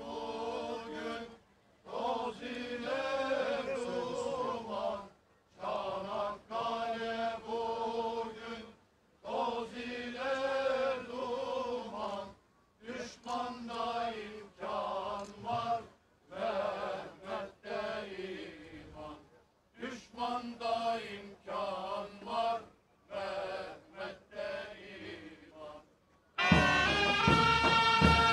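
A man's voice chanting a ceremonial call in long, drawn-out phrases with short pauses between them. About 26 seconds in, the Ottoman mehter band starts playing with drums.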